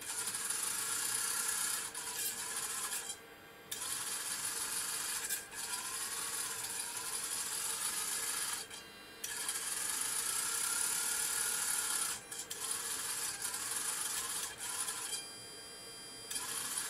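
The Tornado GR4 laser head's 400 Hz AC servo motor and gear train whirring and rasping as the head slews under servo control, the pitch sweeping up and down as it speeds up and slows. It stops briefly three times: about three seconds in, near the middle, and near the end.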